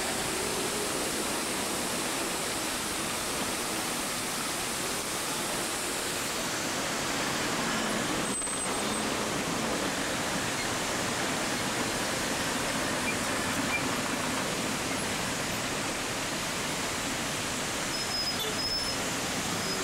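Steady rush of water splashing from a large fountain's jets, blended with passing city traffic.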